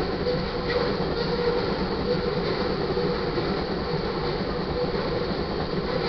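Crude oil tank cars of a freight train rolling past, with a steady rumble of wheels on rail and a few light clicks.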